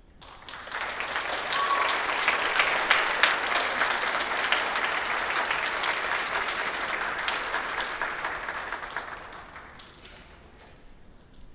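Audience applauding in a concert hall, swelling within the first second, holding steady, then dying away about ten seconds in.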